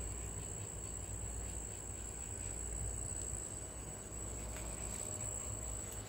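Cricket chirping as a continuous high-pitched trill that holds steady without a break, over a low steady background rumble.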